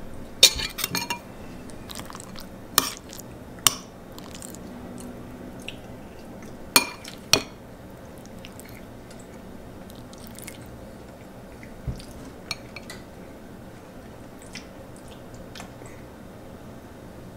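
A metal spoon clinking and scraping against a ceramic bowl as it scoops chili and mashed avocado. A few sharp clinks come in the first half, then fainter taps later on.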